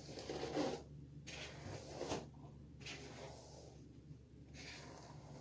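Faint swishing of a hairbrush drawn through long hair, a few separate strokes.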